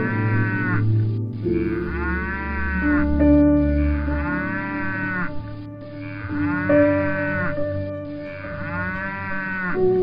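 Cattle mooing, call after call, over background music with long held notes.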